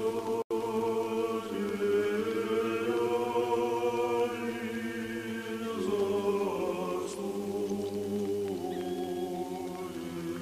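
Old Believer znamenny chant sung a cappella in unison, long held notes moving slowly from one pitch to the next. There is a momentary dropout about half a second in.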